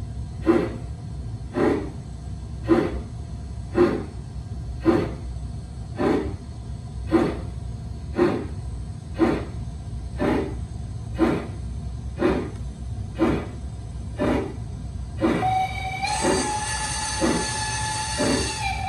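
LGB G-scale model steam locomotive's sound unit giving steam chuffs about once a second, quickening near the end. About fifteen seconds in, a long chime whistle of several tones starts sounding and is held over the chuffing.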